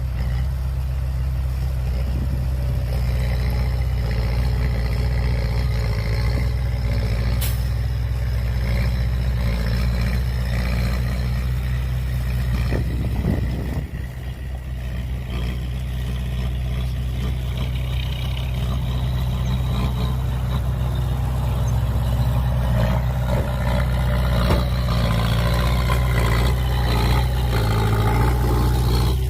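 Heavy diesel engines of construction machinery (a dump truck and bulldozer) running under load in a steady low drone. The sound dips briefly about halfway through and then builds again, with a single sharp click about a quarter of the way in.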